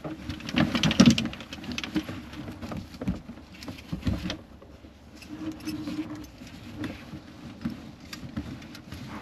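Golf clubs clinking and knocking together in their bag as it is handled and loaded into a helicopter: a string of irregular clicks and rattles, loudest about a second in.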